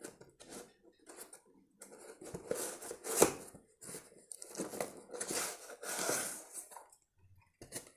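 Cardboard mailer box being torn open by hand and its contents slid out, with scraping and paper rustling in irregular bursts and one sharp crack about three seconds in.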